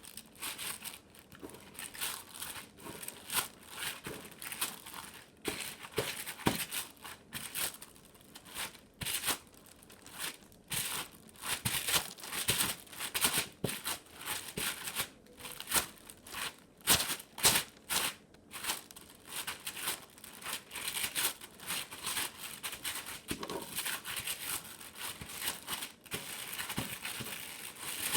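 Homemade slime being squeezed, stretched and pulled apart by hand, giving sticky crackling and tearing sounds that come thick and irregular.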